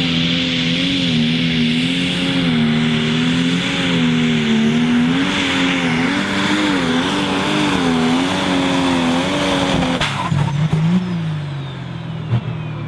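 Pro Stock pulling tractor's turbocharged diesel engine at full throttle under load, its pitch wavering up and down as it pulls the sled. About ten seconds in the throttle is shut: the engine drops to a lower, quieter note and a high turbo whine falls away.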